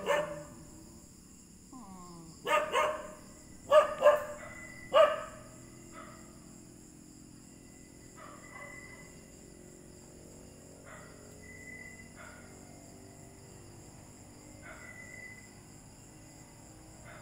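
Small white long-haired dog barking on guard: two quick barks, another two, then a single bark in the first few seconds, followed by fainter, widely spaced barks.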